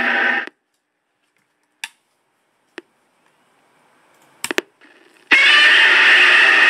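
A small electronic sound-effect module playing a loud recorded clip through its speaker. It cuts off about half a second in, a few light clicks follow, and about five seconds in it abruptly starts playing again.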